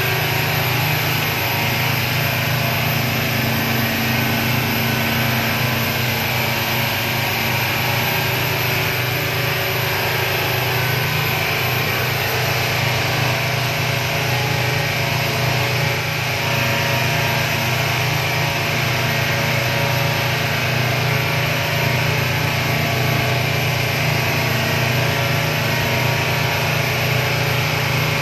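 Motorboat engine running steadily at cruising speed, with a steady hiss of water and wind, heard from inside the boat's enclosed cabin at the helm.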